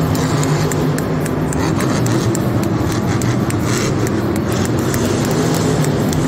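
Monster truck engines running loud and steady, the supercharged V8s of Grave Digger driving across the dirt floor and other trucks sitting at idle; the low engine drone wavers in the middle and settles again near the end.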